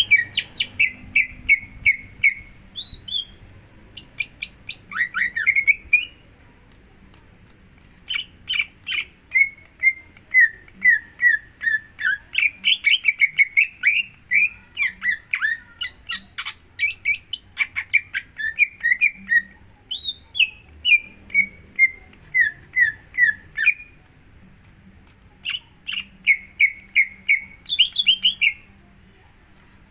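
Green leafbird (cucak hijau) singing: fast phrases of short repeated chirping notes, broken twice by pauses of about two seconds. This is lure song meant to set a caged leafbird singing.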